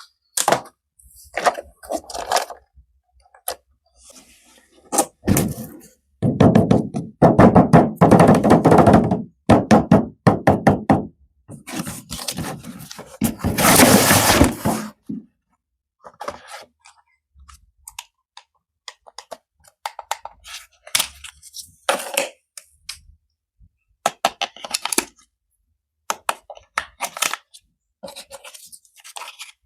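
Handling noise from unboxing: a run of irregular knocks, clicks and clunks, with two louder stretches of dense rattling and crackling about six and twelve seconds in.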